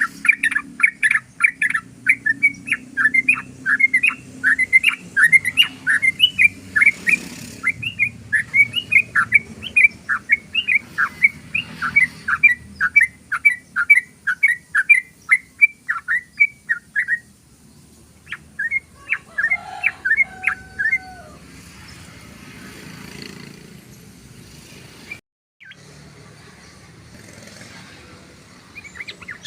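Yellow-vented bulbul (trucukan) singing its rapid 'ropel' song: a long unbroken run of short chirping notes, about three a second, then a pause and a shorter burst near the end.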